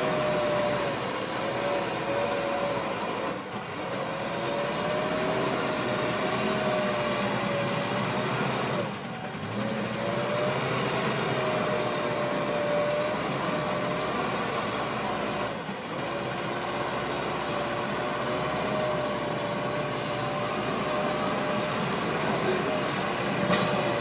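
Hidromek 102S backhoe loader's diesel engine and hydraulics running under work, with a steady wavering whine over the engine noise. The sound dips briefly three times.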